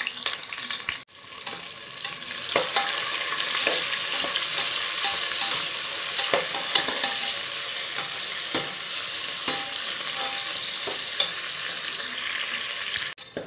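Sliced onions sizzling in hot oil in an aluminium pressure cooker, stirred with a metal perforated ladle that scrapes and clicks against the pot. The sizzle breaks off for an instant about a second in, then runs on steadily.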